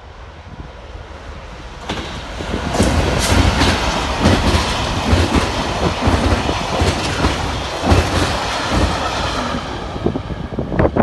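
Freightliner Class 66 diesel freight locomotive, with its two-stroke V12 engine, running through at speed at the head of a rake of engineering wagons. The sound grows as the train approaches and jumps up about two seconds in as it reaches the microphone. Then comes a long, loud rush of wagon wheels rumbling and clattering over the rail joints, with many irregular clicks.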